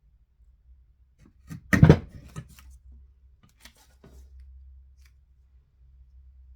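Craft materials being handled on a work surface: a short burst of sharp clicks and scraping about two seconds in, followed by a few lighter clicks.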